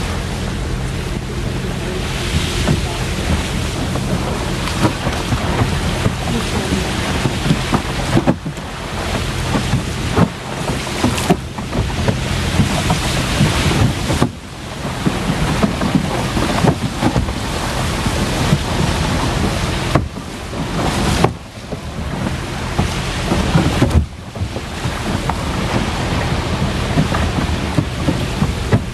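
A motorboat's engine running steadily as the boat moves through floating ice, with wind buffeting the microphone; the rushing noise drops away briefly several times.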